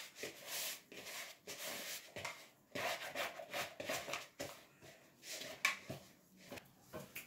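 Hands kneading soft flour-and-water dough in a plastic mixing bowl, working it until smooth: a run of irregular rubbing strokes as the dough is pressed and turned against the bowl.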